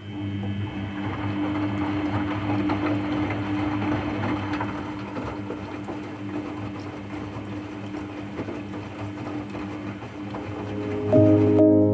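Washing machine brush motor running with a steady hum and a rough, grating noise over it: the sound of the broken motor. Music with mallet percussion comes in near the end.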